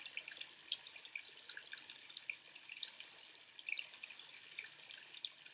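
Quiet room tone with faint, scattered small clicks and ticks over a low hiss.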